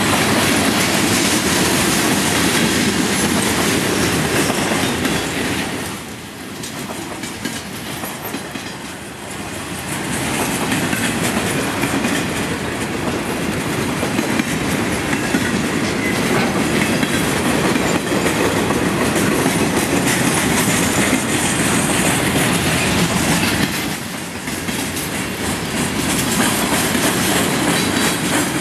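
Norfolk Southern mixed freight train's boxcars and hoppers rolling past close by, steel wheels running on the rails in a steady loud din. It briefly grows quieter twice, about six seconds in and again near the end.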